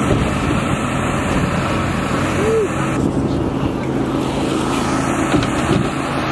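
Steady hum of the airbag's inflator blower and the generator powering it, running without a break.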